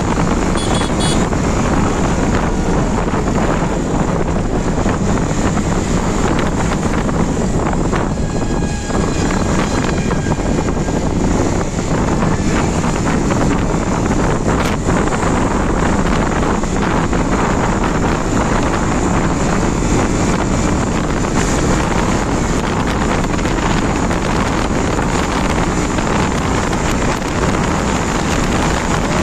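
Wind rushing steadily over the microphone, loudest of all, with a TVS Raider 125's single-cylinder engine running hard under it as the motorcycle holds high speed, near 100 km/h.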